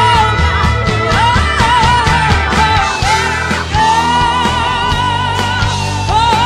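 Band music: a woman singing lead over bass and drums, holding one long wavering note in the second half.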